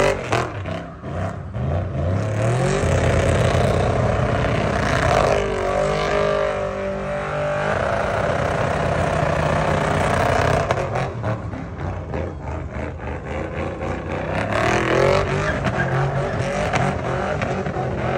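A pickup truck doing a burnout with its engine held at high revs, rising in the first few seconds and then wavering up and down as the throttle is worked. The spinning rear tyres hiss and screech throughout.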